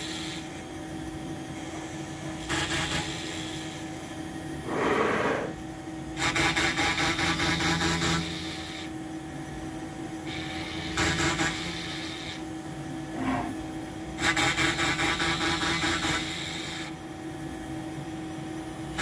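Home-built CNC router's spindle running steadily while a twist drill peck-drills holes in a pine block, cutting in with a retraction between pecks. Several bursts of drilling noise come a few seconds apart, with quieter spells of spindle hum between them as the machine moves from hole to hole.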